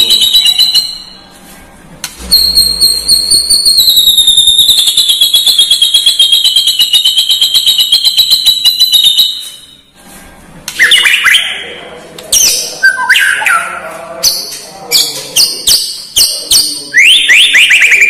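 White-rumped shama (murai batu) singing: a very fast rattling trill held for about seven seconds, then a run of varied, sharply whistled phrases with quick downslurred notes broken by short pauses.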